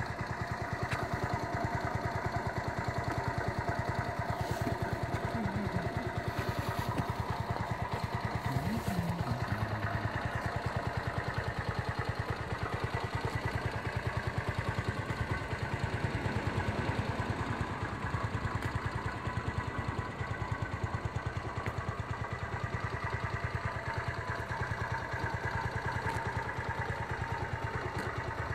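Genata Gen Moto XRZ 125's 125 cc four-stroke single-cylinder engine idling steadily.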